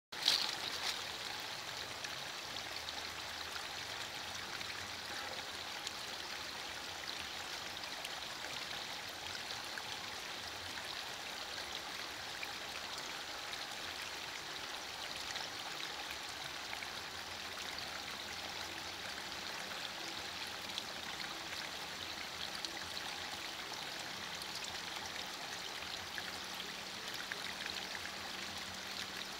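Steady rain falling, an even hiss with faint scattered patter of individual drops.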